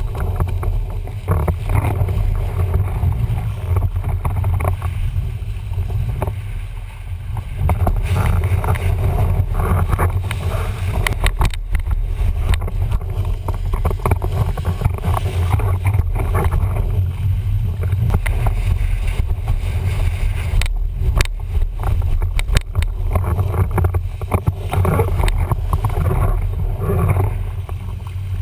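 Wind buffeting the microphone of a board-mounted action camera as a windsurf board sails fast, with a steady low rumble and water rushing and splashing against the board.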